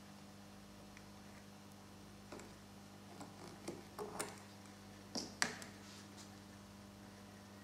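A series of small metallic clicks and taps as a spring-loaded crocodile clip is handled around a battery terminal, with one sharper click a little past halfway. A faint steady mains hum runs underneath.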